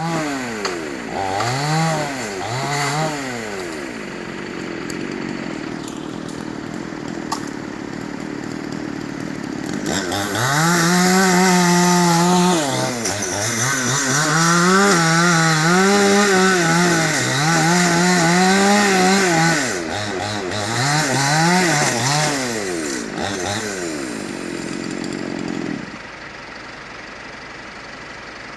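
Two-stroke chainsaw engine revving up and down over and over, held at high revs for long stretches in the middle, then dropping away near the end to a quieter steady noise.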